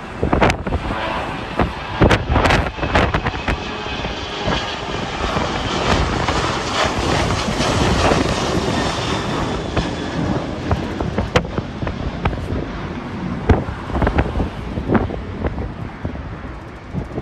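Jet airliner engines passing, the noise building to a peak about halfway through and then easing off, with gusts of wind buffeting the microphone throughout.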